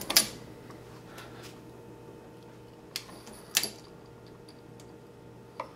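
A sharp metal clack right at the start as the shell plate of a Hornady Lock-N-Load progressive reloading press indexes round, then light metallic clicks about three seconds in and again half a second later as a bullet is set on a brass case mouth in the plate. A faint steady hum lies under it.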